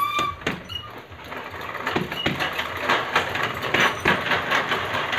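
Compact manual treadmill being walked on: the belt and deck clatter and squeak in a quick rhythm of footfalls, about three a second, growing louder from about two seconds in.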